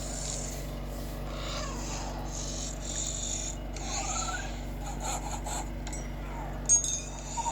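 Rasping, scraping sound effects from a surround-sound test, in repeated hissy bursts with a few short rising whirs, over a steady low hum. One sharp click stands out near the end.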